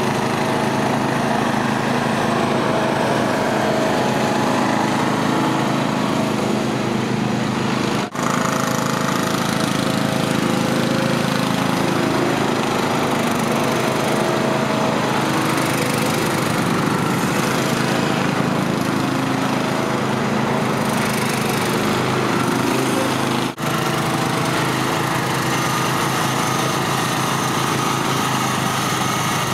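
Ford lawn tractor's small engine running steadily throughout, briefly cutting out twice.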